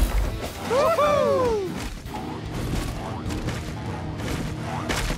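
Cartoon soundtrack: a heavy crash of a falling boulder right at the start, a few short swooping tones that rise and fall about a second in, then background action music.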